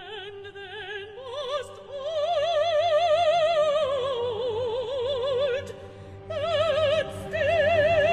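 Solo mezzo-soprano singing long, held notes with wide vibrato over a sustained orchestral chord. The line rises about a second in, sinks lower around the middle, breaks off briefly about six seconds in, then returns on a higher held note.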